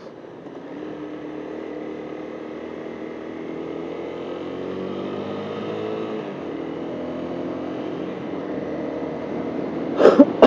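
Honda CBR250 motorcycle engine pulling away and accelerating, its revs climbing with a gear change about six seconds in. A few short, loud thumps near the end.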